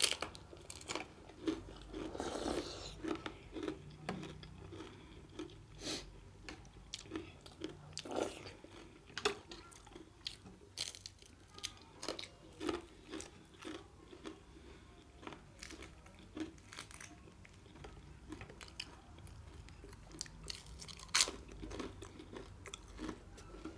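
A person chewing and biting food close to the microphone, with frequent irregular mouth clicks and crunches.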